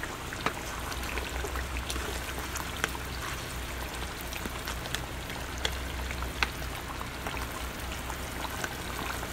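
Green mango pickle simmering in oil and vinegar in a pan, sizzling with a steady patter of small crackles and pops as it finishes cooking, over a low steady hum.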